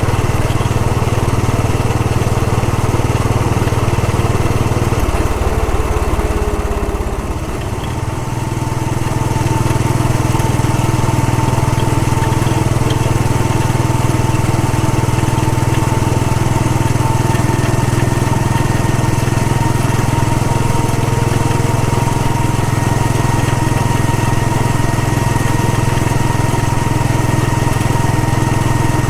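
Royal Enfield Bullet 500's air-cooled single-cylinder engine running steadily while the motorcycle is ridden. It drops away briefly about five seconds in, then picks up again.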